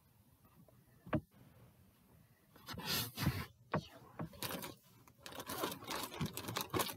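Clear plastic case of pens being handled: a single click about a second in, then irregular rustling, scraping and rattling of the pens and case from about the middle on, busier near the end.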